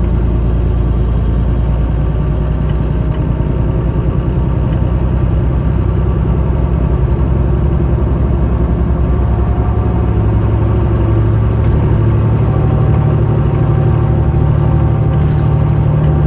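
City bus running, heard from inside the cabin: a steady low rumble and hum from the drive train and road. A faint steady higher tone joins about three-quarters of the way through.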